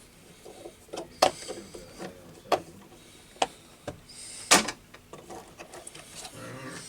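Hand tools and tap parts being handled: a few separate sharp knocks and clicks, the loudest about four and a half seconds in.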